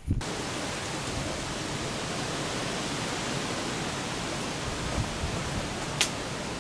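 Steady, even rushing hiss of outdoor noise that starts abruptly just after the start, with one sharp click about six seconds in.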